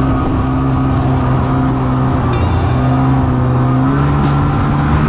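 Ski-Doo 550 snowmobile's two-stroke twin engine running at a steady speed while riding over snow, its pitch shifting slightly about three seconds in.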